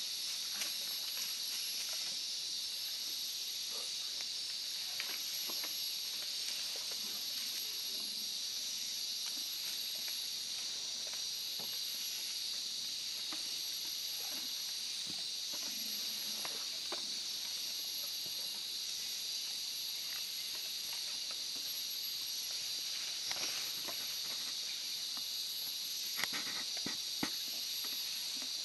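Steady, high-pitched hissing drone of a tropical rainforest insect chorus, with thin unbroken high tones over it. A few short snaps come near the end.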